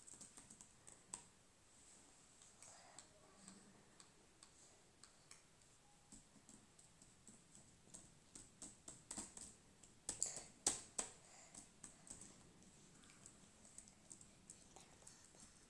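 Laptop keyboard keys tapped by a small child: faint, irregular clicks, with a quicker, louder flurry about ten seconds in.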